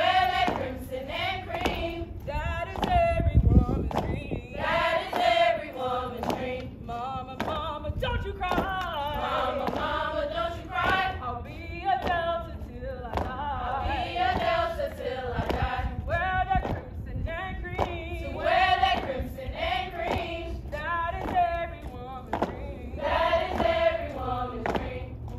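A group of women singing together in unison, with long wavering held notes. A steady beat of thumps runs under the singing.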